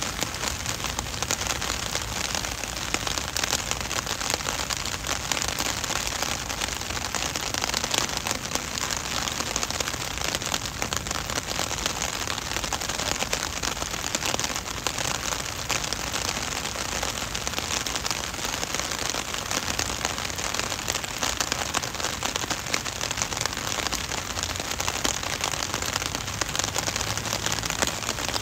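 Heavy rain falling steadily: a dense hiss of countless drops pattering on wet pavement.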